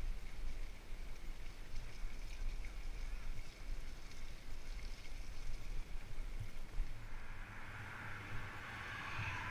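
Wind rumbling on the microphone and the fat tyres of a Salsa Mukluk fat bike rolling on a wet tarmac path, with a hiss that grows louder about seven seconds in.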